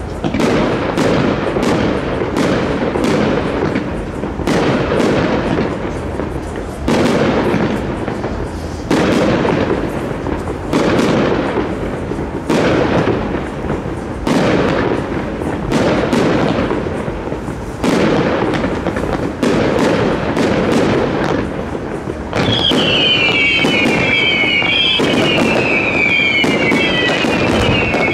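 Fireworks display: aerial shells bursting one after another every second or two, each bang trailing off in an echoing rumble. For the last several seconds, whistling fireworks add a dense run of high whistles, each falling in pitch.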